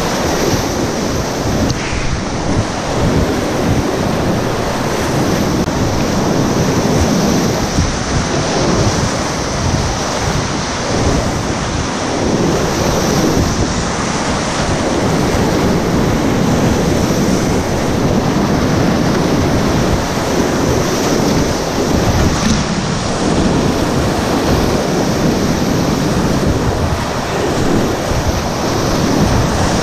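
Loud, steady rushing of a flooded whitewater river's rapids, heard up close from a kayak running through them.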